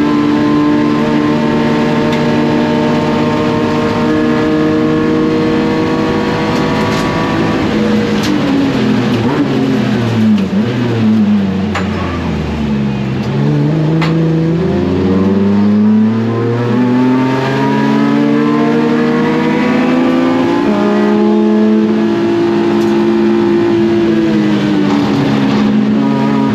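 BMW E36 race car's swapped S54 inline-six at high revs on track. It holds steady, then drops in steps through downshifts about eight to twelve seconds in, then climbs back up through the gears and holds high revs again.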